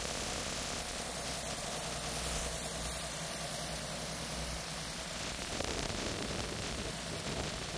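Steady hiss of wind on the microphone, with a low steady hum underneath.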